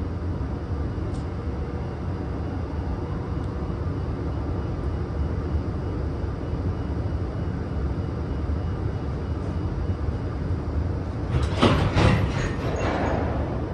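Freight train hauled by a JR Freight EH200 electric locomotive running past with a steady low rumble, with a brief louder rattle of wheels and cars about eleven to twelve seconds in.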